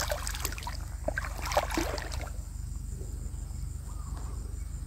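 Wading steps through shallow lake water, splashing for about the first two seconds, then only faint water sounds as the wader stops and reaches into the water. A low, steady hum runs underneath.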